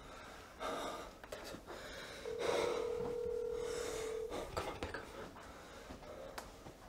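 Telephone ringback tone heard through a phone earpiece: one steady two-second ring about two seconds in, the call still ringing and not yet answered. Breathing and a couple of light clicks sound around it.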